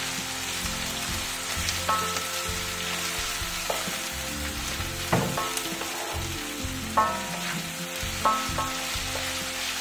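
Beef chunks and chopped onion sizzling in a hot granite-coated sac pan while a wooden spatula stirs them, with a few short scrapes of the spatula across the pan.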